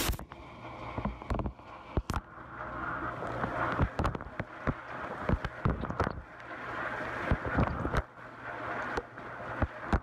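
Dishwasher wash cycle heard from inside the tub: water from the spray arm splashing against the walls and racks, with irregular sharp knocks throughout.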